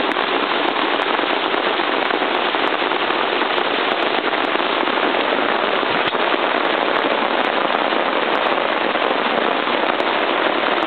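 Heavy rain pouring down, a loud, steady, dense crackle of drops.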